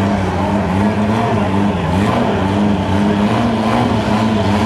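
Turbocharged Eagle Talon drag car's four-cylinder engine running at a steady, slightly wavering pitch while staged at the starting line, just before launch.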